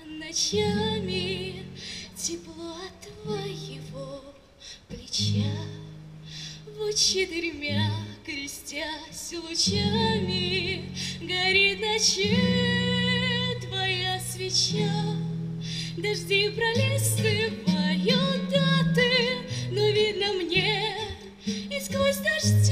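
A solo singer accompanying themselves on an acoustic guitar, performing a Russian bard song: a sung melody with vibrato over plucked and strummed chords.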